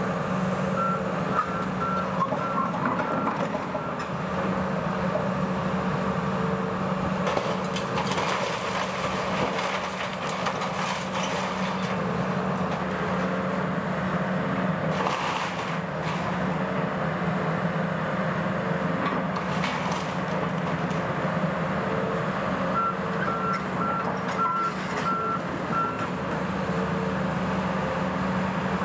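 Large tracked demolition excavator's diesel engine running steadily, with an alarm beeping rapidly in two spells, near the start and again about three-quarters of the way through. A few short bursts of crashing from the building debris being pulled down.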